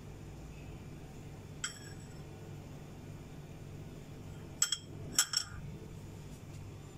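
A metal spoon clinking against a dish: once a little under two seconds in, then two quick double clinks near the end, over a faint steady hum.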